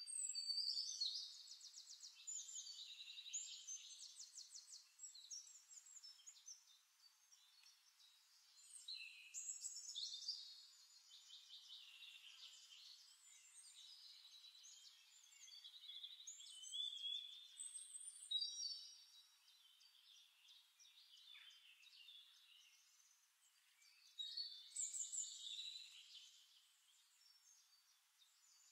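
Faint birdsong: high, rapid trilling song phrases lasting a few seconds each, repeating with short gaps.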